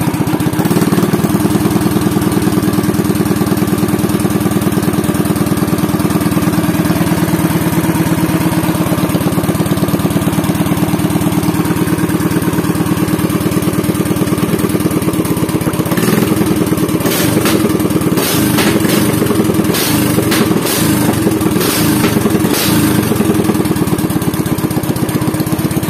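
Motoyama SPE 500 Gold Marine 500cc katinting engine running on an open straight exhaust pipe, at a steady idle. In the second half the running turns uneven, with a run of sharp cracks from the exhaust.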